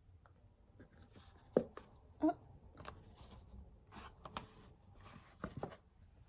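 Cardboard jewellery box and its snap-fastened inner folder being handled and opened: soft rustles with scattered clicks and taps, one sharper knock about one and a half seconds in.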